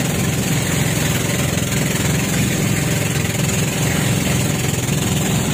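An engine running steadily at an even speed, a constant low drone under a wide hiss.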